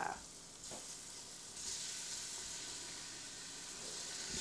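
Cubes of stew beef sizzling in hot olive oil in an Instant Pot's stainless steel inner pot on the sauté setting, browning. The sizzle grows louder about a second and a half in as more pieces go into the pot.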